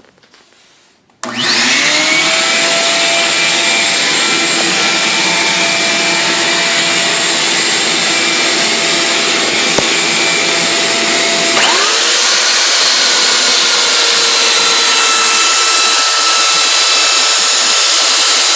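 A vacuum is switched on about a second in, spins up with a rising whine, and runs steadily, drawing air and dust down through a slatted sanding table. About two-thirds of the way through, the whine shifts in pitch and the deeper part of the sound drops away, then it runs on steadily.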